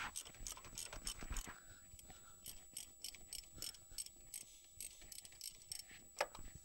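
Faint, irregular clicking and ticking from a plastic oil filter housing cap being unscrewed by hand.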